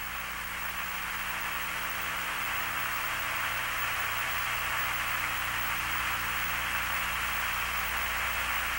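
Steady static hiss with a low electrical hum underneath: an open radio communications channel carrying no voice.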